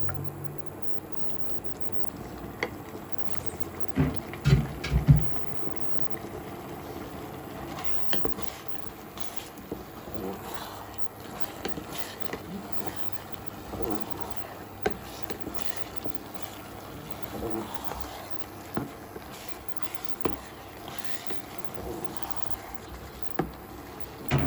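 Cooked fish and its juices being tipped into a pan of risotto and stirred in, with a utensil scraping and knocking against the pans; a few heavier knocks come about four to five seconds in, then lighter clinks and scrapes over the simmering pan.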